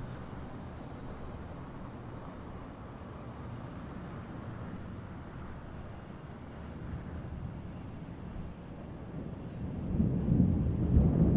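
Low, steady rumble of city background noise with a few faint, short high chirps, then thunder rumbling in and growing loud about ten seconds in.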